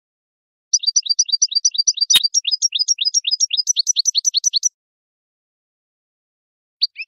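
European goldfinch singing: a fast run of short, high twittering chirps for about four seconds, broken by one sharp click about two seconds in. A new phrase starts near the end.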